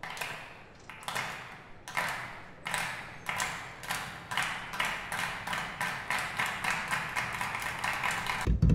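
Rhythmic clapping, slow at first and speeding up, each clap sharp with a short echo. A loud low rumble breaks in at the very end.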